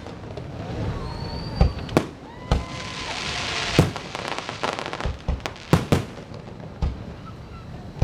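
Fireworks going off: a series of sharp bangs, some in quick pairs, with a dense crackling hiss in the middle.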